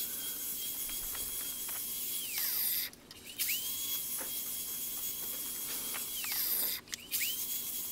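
Angle grinder with a flap disc polishing a steel hammer head. Its motor gives a steady high whine that twice winds down and starts up again a moment later.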